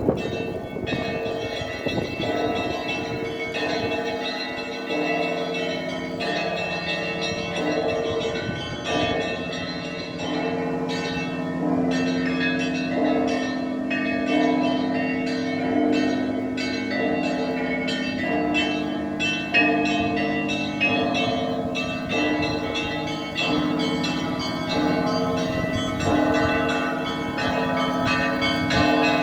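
Russian Orthodox monastery church bells rung together: quick strikes of the smaller bells over the sustained ringing of larger, lower bells, without a pause.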